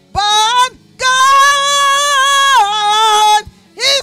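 A woman singing a gospel song solo into a microphone: a short phrase, then one long held note that wavers and steps down in pitch near the end, and a brief rising note at the close.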